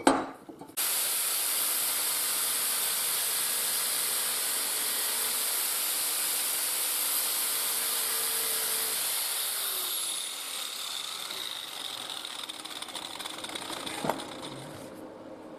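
Angle grinder starting up about a second in and grinding a steel bar, running steadily for about eight seconds. It is then switched off and spins down with a falling whine. A single knock comes near the end.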